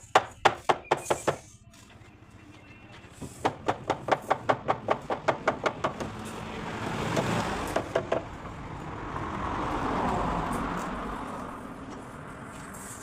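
Rapid hammering on wood, about five or six blows a second: a short run at the start and a longer one from about three seconds in. After that, passing traffic swells and fades twice.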